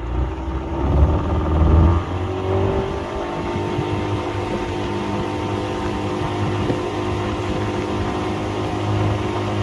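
Boat motor throttled up hard over the first two seconds, then running steady at speed.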